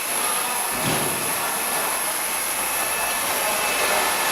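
Tray washing machine for vials running: a loud, steady hiss with a thin high whine on top. A short low thud comes about a second in.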